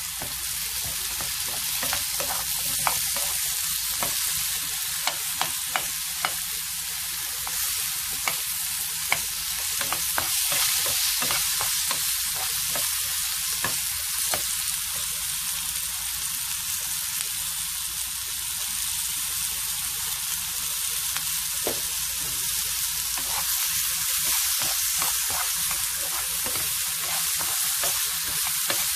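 Carrots, mushrooms and garlic sizzling in oil in a frying pan with a steady hiss while a silicone spatula stirs them, with scattered light clicks and taps, most of them in the first ten seconds.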